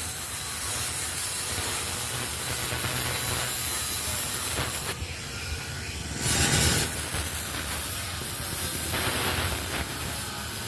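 Angle grinder grinding metal: a continuous harsh rasp that breaks off for about a second around halfway, then a brief louder burst as it bites in again.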